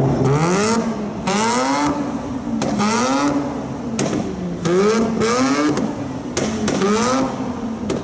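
Mazda RX-8's two-rotor Wankel rotary engine blipped repeatedly from idle, about six quick revs that each rise and fall back in pitch. Several sharp pops of exhaust backfire come between the revs.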